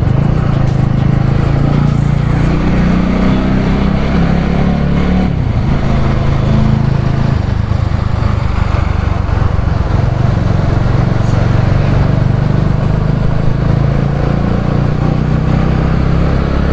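Motorcycle engine running as the bike rides slowly along, its note rising and falling with the throttle.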